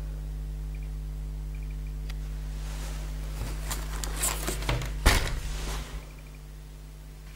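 A steady low electrical hum with faint short high beeps in small groups. About three seconds in, rustling and knocking of handling join it, loudest a sharp click about five seconds in. The hum cuts off about six seconds in.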